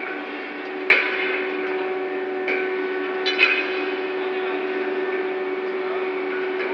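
Steel rail and crane lifting-beam clamps knocking with sharp metallic clanks, a loud one about a second in and another about three and a half seconds in, as the slung rail is guided down onto stacked rails. Underneath runs a steady machinery hum.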